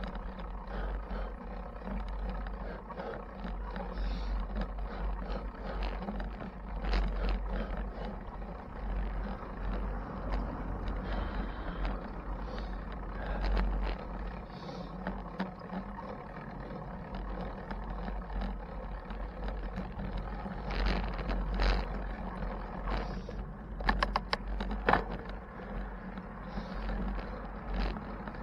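Bicycle riding noise: a steady wind rumble on the microphone over road noise, with a quick run of sharp rattling clicks near the end.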